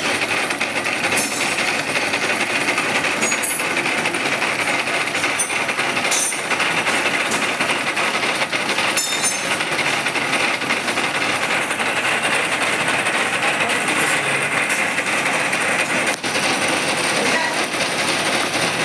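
Face-milling cutter on a plano milling machine cutting a metal press brake holder profile: a loud, steady cutting noise with a strong high edge, broken by scattered sharp ticks.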